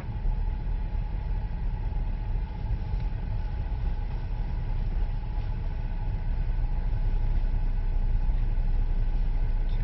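A car's steady low engine and road rumble, heard from inside the cabin, growing slightly louder near the end.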